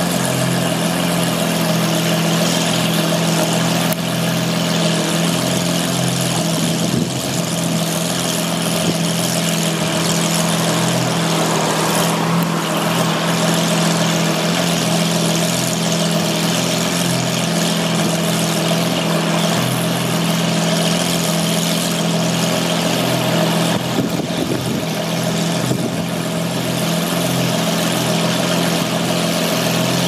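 Lamborghini Aventador's V12 engine idling steadily, a constant low hum with no revs.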